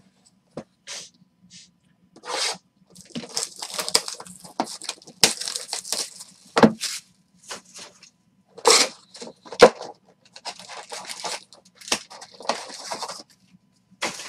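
Plastic shrink wrap being torn and crinkled off a 2019 Panini Certified football card hobby box, then the cardboard box being handled and opened. Irregular crackling and rustling with a few sharp knocks.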